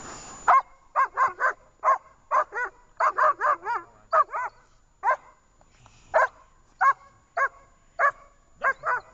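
German Shepherd barking in sharp, repeated barks, some in quick runs of two or three, while held back on a leash and facing the helper in protection training. The barks start about half a second in.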